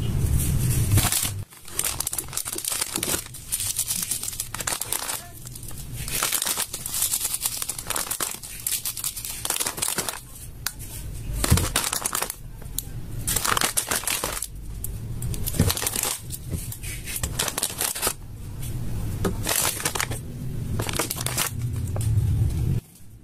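Slime being played with by hand, making crinkly, crackling squishes in many irregular bursts.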